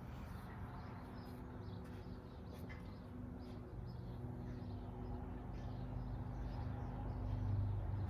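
Quiet room tone: a steady low hum, with a few faint, short high chirps scattered through it.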